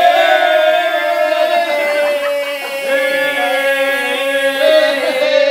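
A single voice holding one long, steady 'aaah' note, over the hiss of an aerosol can of white party spray being sprayed continuously. The spray hiss stops near the end.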